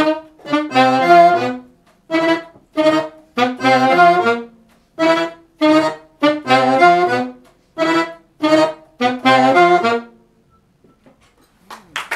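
Chromatic button accordion and alto saxophone playing together in short, punchy notes and chords separated by brief gaps. This is the closing phrase of a jazz tune, and it stops about ten seconds in. Applause breaks out at the very end.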